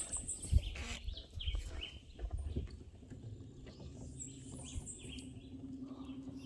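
Faint bird chirps over scattered knocks and rustles from the fishing rod and kayak being handled, with a low steady hum that starts about halfway in.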